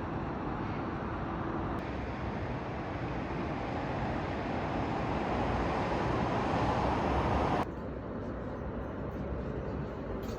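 Steady rumbling noise of a moving vehicle. It grows louder and then drops off suddenly about three-quarters of the way through.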